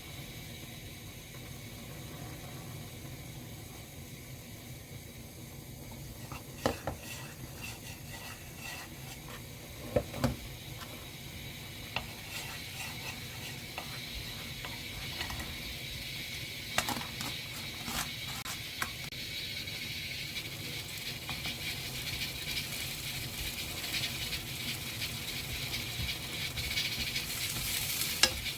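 Julienned potatoes stir-frying in a pan, with a spatula stirring and scraping and now and then knocking against the pan. A steady frying hiss grows louder over the second half.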